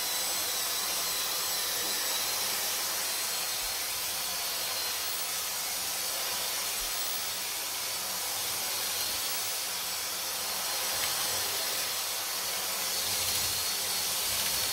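Dyson DC44 cordless vacuum cleaner running steadily while picking up dirt: a steady rush of airflow with a thin high whine over it.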